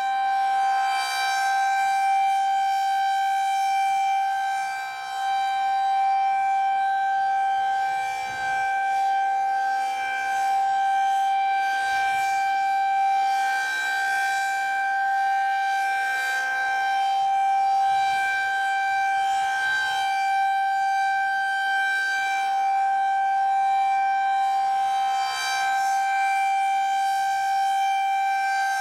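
Federal Signal 2001-SRN outdoor warning siren sounding a steady, unwavering tone during its monthly test. It holds one pitch throughout, with slow, gentle swells in loudness.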